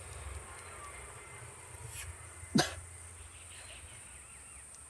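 A boy coughing once, sharply, about two and a half seconds in, as he takes a drag on a cigarette. A low steady hum runs underneath.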